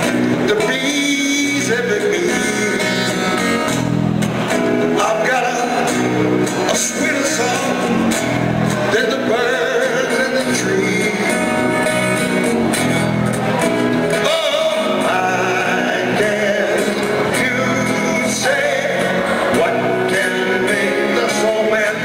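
A man singing live into a microphone through a PA speaker, accompanied by a strummed acoustic guitar.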